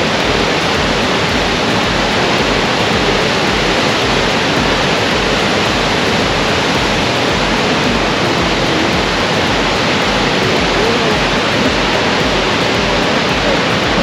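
Great Falls of the Potomac River rushing over rocks: a loud, steady roar of whitewater that does not change.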